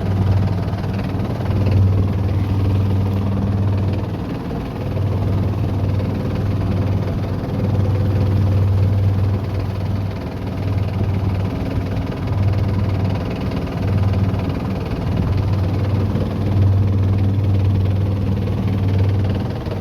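Boat engine running steadily with a low hum that swells and fades every second or two.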